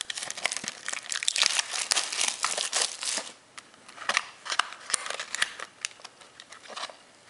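Foil trading-card pack wrapper being torn open and crinkled by hand, dense crackling for about three seconds, then fainter intermittent crinkles and rustles.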